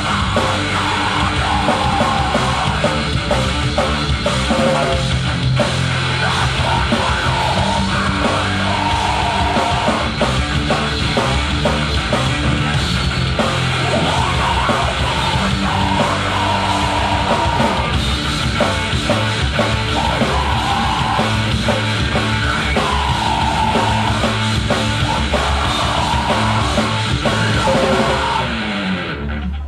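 Heavy metal band playing live: loud, dense drums and instruments with shouted vocals, the song stopping right at the end.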